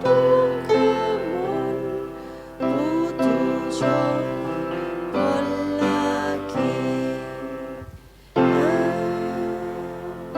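Music with piano and a gliding melody line, breaking off briefly about eight seconds in before starting again.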